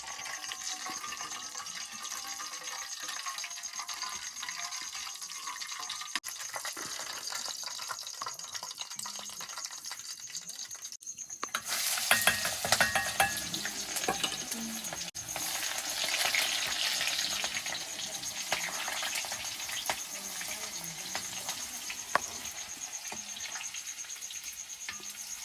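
Pork frying and sizzling in hot fat in a pan, its fat being drawn out, with a steady hiss. About eleven seconds in it turns louder, with a utensil stirring and scraping against the pan.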